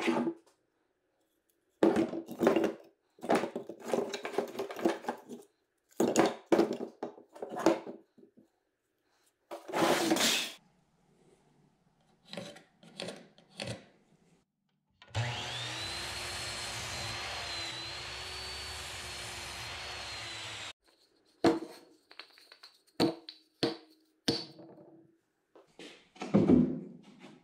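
Old wooden boards knocked and shuffled on a workbench, then a small power tool motor running steadily for about six seconds, with a high whine that rises as it starts up. Sharp clicks and knocks follow near the end.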